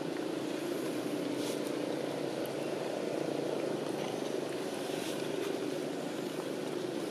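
A steady low mechanical drone, like an engine running, holding an even level throughout.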